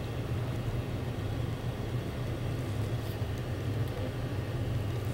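Steady low hum with a faint even hiss; no distinct event stands out.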